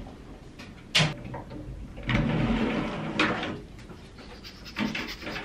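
Wooden sliding door being rolled open along its track: a knock about a second in, then about a second of rumbling as it slides, ending in a clack.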